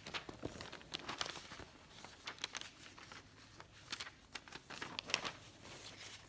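Paper rustling and crinkling as sheets are handled, in short, irregular bursts.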